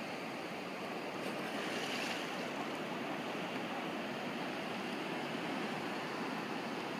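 Steady wash of ocean surf and waves.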